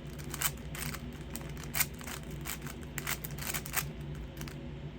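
Plastic clicking and clacking of a 5x5 Rubik's cube's layers being turned by hand in quick, irregular moves, over a steady low hum.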